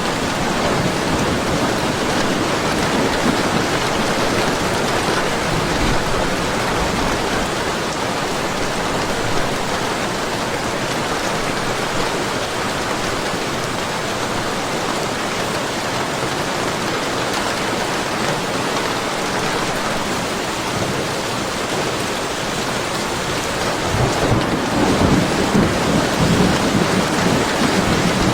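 Steady heavy rain falling, with a low rumble of thunder rolling in near the end.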